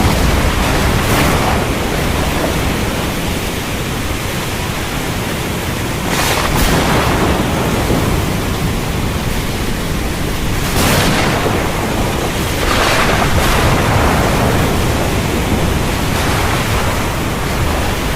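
Heavy rain in a thunderstorm: a loud, dense, steady hiss with a low rumble underneath, swelling in surges about six, eleven and thirteen seconds in.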